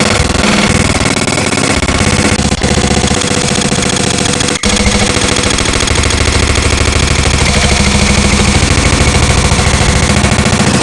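Black MIDI arrangement of a phone ringtone melody played by a MIDI synthesizer: a loud, saturated wall of densely stacked notes that buzzes almost like a machine, with two very short breaks about two and a half and four and a half seconds in.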